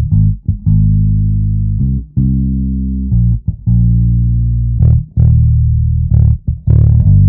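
Loud, bass-heavy outro music: a run of held low notes broken by short gaps.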